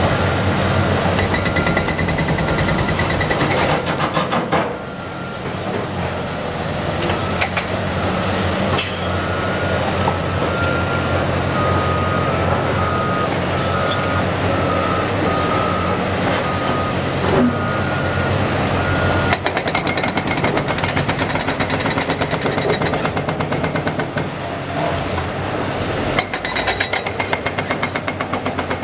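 Caterpillar diesel excavators running while their hydraulic breakers pound concrete in rapid strokes. The pounding is heaviest in the first few seconds and again from about two-thirds of the way through. Backup alarms beep through the first two-thirds.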